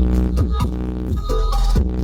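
Electronic dance music played loud through a large sound system, with a steady deep bass and pitched notes that repeatedly slide downward.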